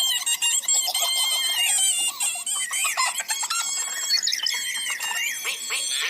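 A busy mix of high chirping, warbling tones that jump and wobble quickly in pitch, with no low engine or drilling sound underneath.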